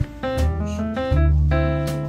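Instrumental background music: plucked guitar notes over long, deep bass notes, with a couple of sharp hits.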